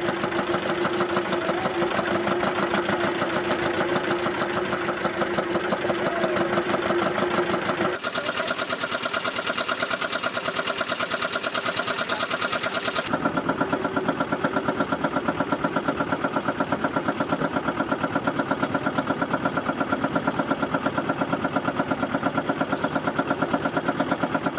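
Engine of a wooden river boat running steadily, with a fast, even chugging pulse. Its tone changes abruptly twice along the way.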